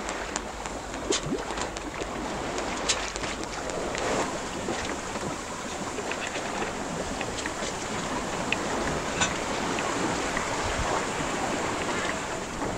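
Wind and sea noise aboard a small sailboat under way: a steady rush of wind on the microphone and water along the hull, with scattered small ticks and slaps throughout.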